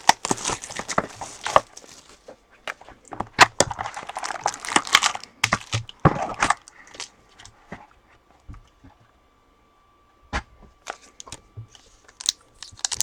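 Trading-card packaging being torn open and handled: crinkling, tearing and sharp clicks of wrapper and cardboard for about six seconds, then a short lull and a few scattered clicks.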